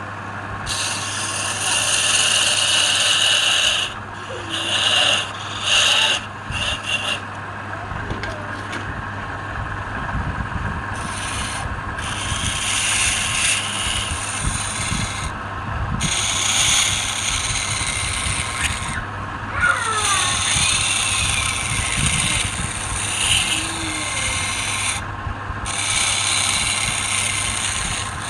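A turning tool or abrasive rubbing against wood spinning on a lathe: a rasping scrape in passes a few seconds long, broken by short pauses.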